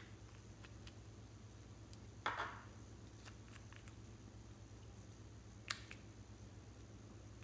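Faint handling sounds of a small brush-cap bottle being opened and its brush drawn across glue: a short scrape about two seconds in and a sharp click near six seconds, with a few faint ticks over a low steady hum.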